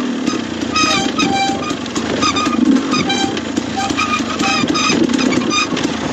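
KTM enduro motorcycle engine running on a rough downhill trail, the throttle opened and closed in short, uneven bursts.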